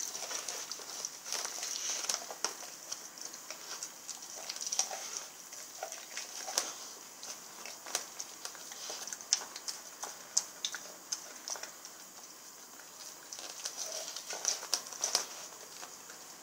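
Rottweiler gnawing a raw lamb shank: irregular wet smacks and sharp clicks of teeth on meat and bone, easing off for a couple of seconds past the middle and picking up again near the end.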